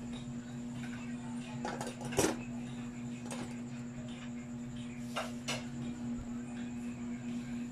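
Cut cotton fabric pieces being handled and stacked on a tabletop: soft rustling and a few light knocks, the loudest about two seconds in, over a steady low hum.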